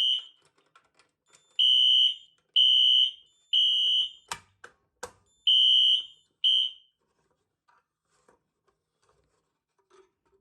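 Fire alarm horn sounding the temporal-three evacuation pattern, set off by a manual pull station test: groups of three high, steady beeps with a pause between groups. Two sharp clicks come about four and five seconds in, and the alarm cuts off about seven seconds in, in the middle of a group.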